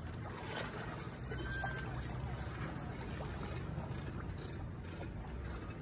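Shallow water lapping and sloshing at a rocky shoreline as a person wades in, over a steady low rumble.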